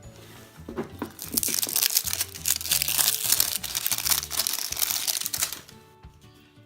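Crinkly plastic packaging being handled and crumpled for about four and a half seconds, starting about a second in and dying away near the end, over soft background music.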